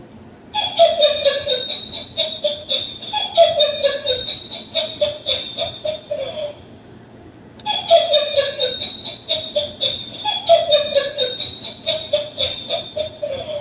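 Motion-triggered electronic toy playing a recorded laughing sound, the same clip of about six seconds twice with a short pause between.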